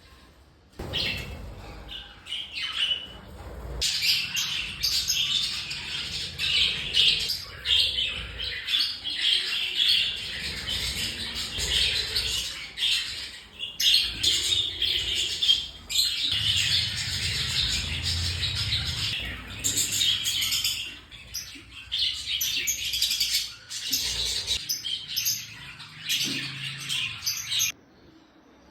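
Pet lovebirds chattering and squawking together in a dense, continuous din of shrill calls, with a few brief lulls; it stops abruptly shortly before the end.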